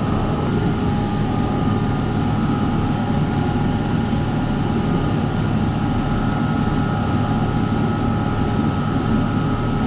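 Steady machinery drone with a low hum and two constant whining tones, unbroken throughout.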